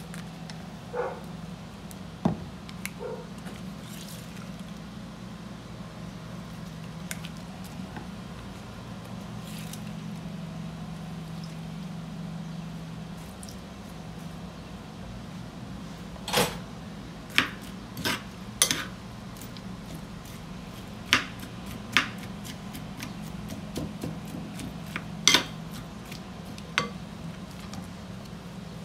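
Kitchen handling sounds as limes are squeezed with a hand-held lime squeezer over chopped red onion in a terracotta bowl: a run of sharp clicks and knocks of the squeezer and a spoon against the bowl, mostly in the second half, with soft squishing and dripping. A steady low hum runs underneath.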